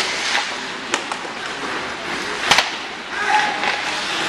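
Ice hockey play: skate blades scraping across the ice, with sharp cracks of stick and puck impacts about a second in and, loudest, about two and a half seconds in. A brief shout comes a little after three seconds.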